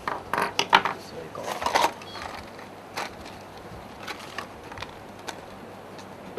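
Small clicks and short scrapes of hard parts being handled, clustered in the first two seconds and then a few single clicks, as the VCD player's laser pickup assembly is worked on by hand.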